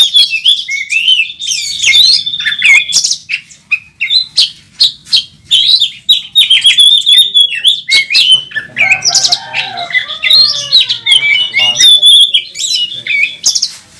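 Oriental magpie-robin (kacer) singing loudly in fighting mode: a fast, varied stream of whistles, trills and sharp rasping notes, with a run of lower, rougher phrases around the middle.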